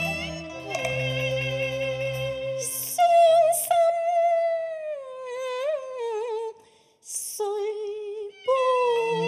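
Cantonese opera singing with a Chinese orchestra: the ensemble plays for the first two seconds or so, then a woman sings a slow unaccompanied phrase with wide vibrato that sinks in pitch, breaking off briefly about seven seconds in. The orchestra comes back in near the end.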